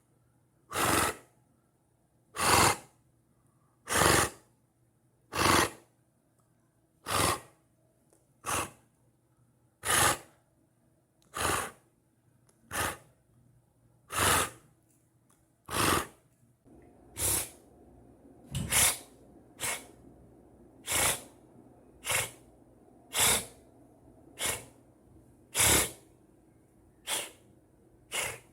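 A person imitating tiger chuffing: a steady series of short, sharp, breathy puffs, about one every second and a half. From a little past halfway the puffs come somewhat closer together over a faint background hiss.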